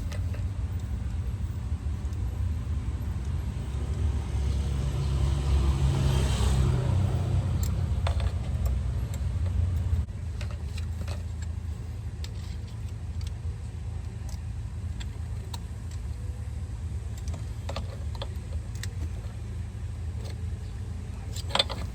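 Low rumble of a vehicle engine running, swelling for a few seconds and then dropping off suddenly, with scattered light clicks and one sharper click near the end.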